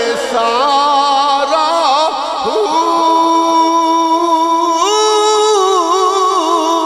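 A man singing Punjabi Sufi kalam in long, drawn-out notes with wavering ornaments, into a microphone. About five seconds in, his pitch steps up and is held briefly before falling back.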